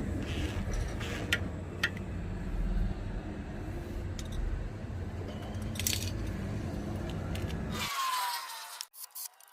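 Small gasoline engine of a walk-behind tiller running steadily with rattling clicks, then cutting off suddenly about eight seconds in.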